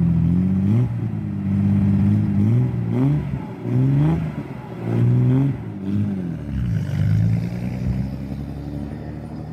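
Datsun 240Z's L24 inline-six with 3-2-1 headers and a Twice Pipes exhaust, revved up and back down about five times. After about six seconds it settles to a steadier note and grows fainter as the car pulls away.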